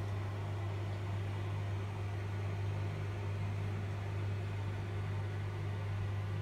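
Steady low hum with a faint, even hiss above it, unchanging throughout.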